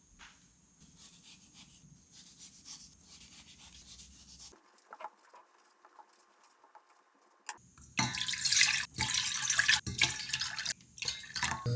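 Water from a kitchen tap running into a sink, loud from about eight seconds in and briefly broken up a few times; before that, fainter scrubbing and handling noises.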